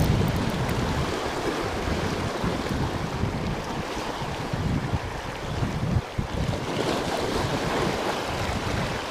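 Sea waves surging and washing over shoreline rocks, with wind buffeting the microphone in an uneven low rumble.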